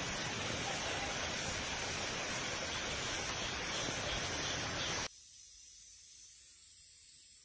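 Steady rushing noise, even and without pitch, that cuts off abruptly about five seconds in and gives way to a much fainter hiss.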